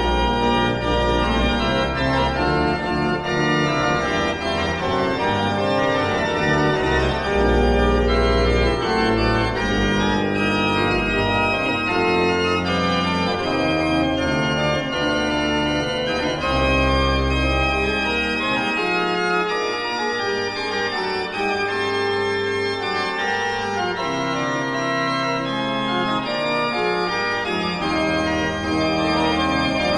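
Pipe organ playing a Baroque chorale prelude in sustained, overlapping chords over held pedal bass notes. The deep pedal notes drop out about two-thirds of the way through, leaving the upper voices alone, and come back just before the end.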